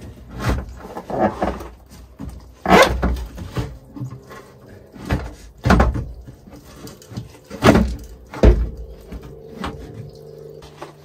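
A string of loud, irregularly spaced knocks and clunks, about eight in the first eight and a half seconds. A steady low hum then sets in and runs on.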